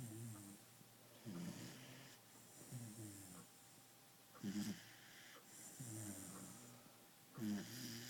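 A pet snoring, with a low rasping snore about every one and a half seconds.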